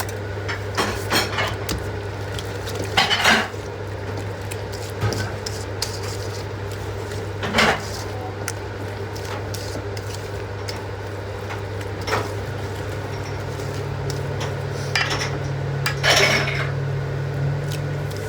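Kitchen utensils and dishes clinking and clattering, with a few louder knocks spread out, over a steady low hum.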